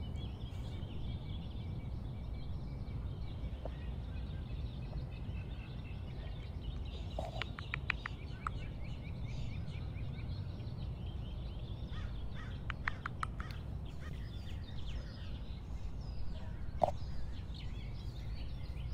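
Outdoor ambience with a steady low background rumble and small birds chirping in quick runs, about seven seconds in and again around twelve to thirteen seconds. There is one sharp knock near the end.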